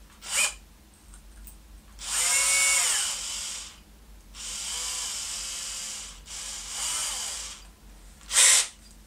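Cordless drill motor running in short bursts: three runs of about a second each, the whine rising in pitch as each spins up, with a quick blip of the trigger near the start and another near the end, as a 3 mm bit is tightened in the chuck.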